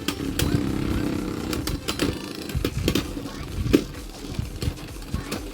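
Beyblade Burst tops spinning and clashing in a plastic stadium: a steady whirring with many sharp clicks as they strike each other and the stadium walls, and one harder hit just under four seconds in.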